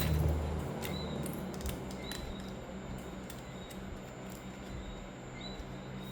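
Scattered small clicks and taps from laptop parts being handled and fitted during reassembly. Under them run a short, faint high chirp about once a second and a low hum.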